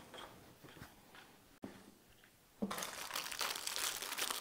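Faint soft handling sounds on the desk, then, a little past halfway, a sudden continuous crackly crinkling that keeps going, like plastic or paper being handled.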